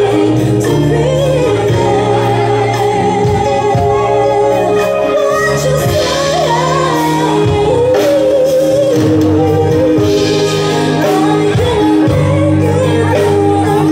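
Live band playing, with a woman singing lead in held, wavering notes over electric guitar, bass, keyboard and drums.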